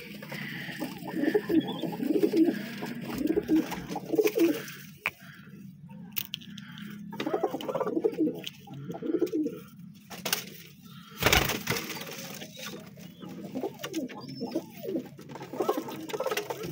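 Domestic pigeons cooing over and over, low rolling calls in a loft, with a few clicks and one sharp knock about eleven seconds in.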